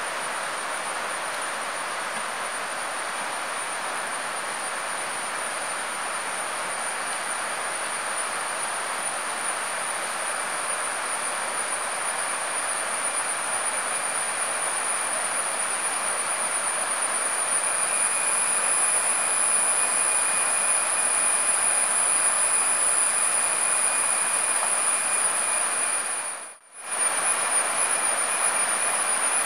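Steady rushing of a forest stream with a continuous high-pitched insect drone over it, growing louder through the second half and cutting out for a moment near the end.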